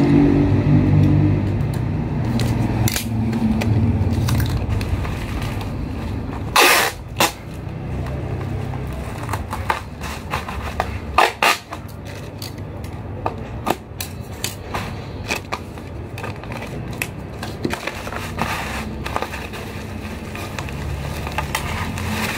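Clear packing tape pulled off its roll in two loud rips, about seven and eleven seconds in, among crinkling and rustling of black plastic wrap being pressed around a parcel. A low rumble underlies the first six seconds and fades out.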